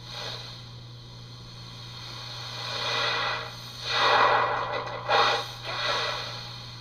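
A person breathing close to the microphone: several hissy breaths, the loudest about four seconds in, over a steady low electrical hum.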